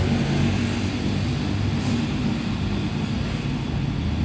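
Steady low rumble of vehicle engines and street traffic, with a faint humming drone underneath.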